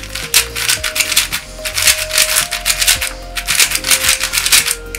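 YJ MGC 4x4 magnetic speed cube being turned fast through an algorithm: quick runs of plastic clicks and clacks as the layers snap into place, with a couple of short pauses. The cube is dry and untensioned out of the box, with a sandy feel.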